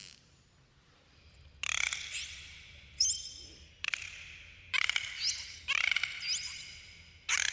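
An animal, bird-like, giving a series of harsh rattling calls about once a second, with short rising squeaky notes among them.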